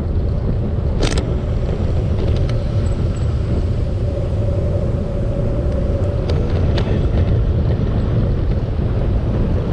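Wind buffeting the microphone of a bicycle rider's camera on a descent, a loud steady low rumble, with a sharp click about a second in.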